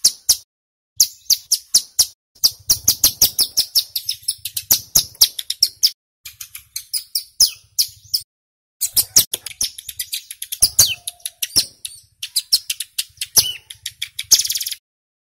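Male ciblek gunung (a prinia) singing a fast 'bren' song: rapid runs of short, high chips in several bursts broken by brief pauses, with a buzzy unbroken trill near the end.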